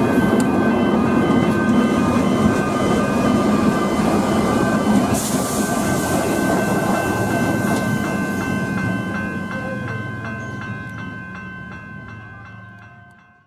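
Comeng electric suburban train running past with a rumbling, clattering rail noise that gradually dies away. Level crossing warning bells ring throughout, their regular dings, about two a second, standing out more clearly as the train noise drops. The whole sound fades out near the end.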